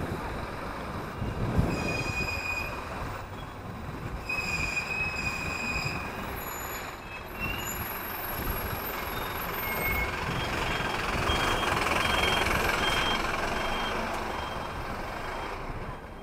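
Wind and road-traffic noise heard from a moving bicycle on a city street, with a bus running just ahead. Brief high-pitched squeals about two and four seconds in, and from about ten seconds a faint high beep repeating roughly twice a second.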